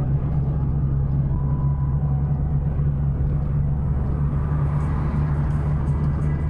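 Cabin drone of a Chevrolet Astra at highway speed, heard from inside the car: steady engine and tyre-on-road noise as the car speeds up gently.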